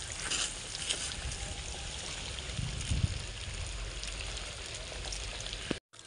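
Wind buffeting an outdoor phone microphone: a steady rushing hiss with uneven low rumbling gusts. The sound drops out for a moment near the end.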